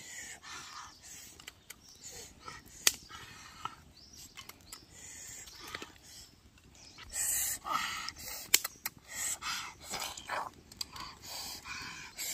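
Dry twigs clicking and snapping as kindling is laid over a bed of charcoal to start a fire. From about seven seconds in comes a run of short, breathy hissing puffs.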